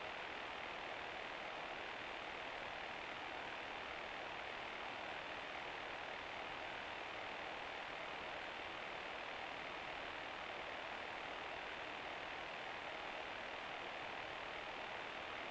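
Steady hiss of static from the outdoor loudspeakers of an analog municipal disaster-prevention radio system, with no chime tones.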